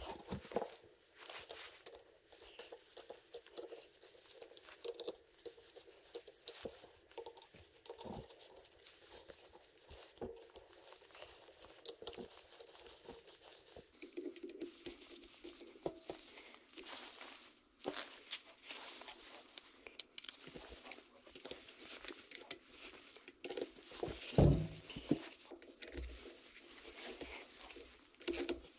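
Irregular small clicks, scrapes and rustling from the parts of a disassembled alternator being handled and worked on, with one louder knock about three-quarters of the way through.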